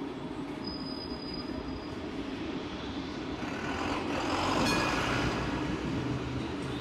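Stadler Variobahn light-rail tram running along its track with a steady rumble; about four seconds in, a louder rushing swell as an oncoming tram passes on the next track, with a short click at its height.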